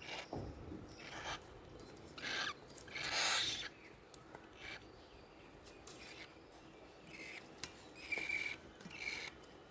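Cockatiel chicks making short raspy, hissing calls in a string of separate bursts, the loudest about three seconds in, with a few thin chirps near the end.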